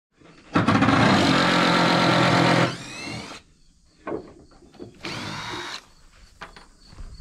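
Power drill running, first in a steady burst of about two seconds that winds down, then briefly again a couple of seconds later, with a few knocks between the runs.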